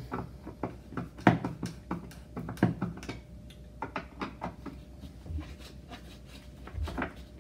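Irregular clicks and light knocks of a screwdriver backing out the height-adjustment screws of an adjustable door threshold, many in the first three seconds, then sparser. Two dull low thumps come in the later half.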